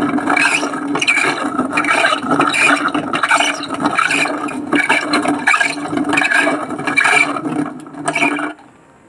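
Table-top wet grinder running under power with a steady motor hum beneath a rough, uneven grinding rattle that pulses a few times a second, then switched off shortly before the end. The noise is the sign of a failed drum bearing letting the grinding wheel wobble.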